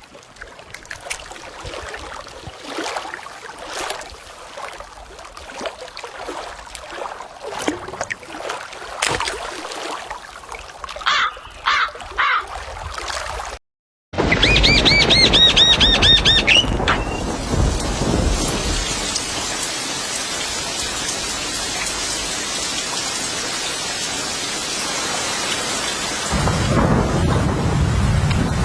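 Steady heavy rain hiss with some low rumble, with a bird's rapid series of about eight repeated chirps over it at the start. Before that, after an abrupt cut, comes a stretch of scattered clicks and rustling with a few short bird calls.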